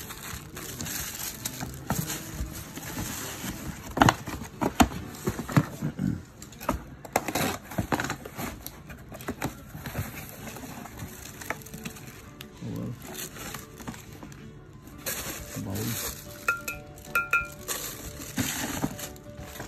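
Tissue paper wrapping and cardboard boxes rustling and crinkling as they are handled, with sharp knocks and clinks as bone china pieces and box lids are moved and set down.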